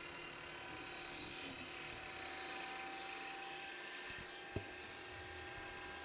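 Table saw running with a steady whine as its blade cuts through rigid foam insulation board, with a single short knock a little past halfway.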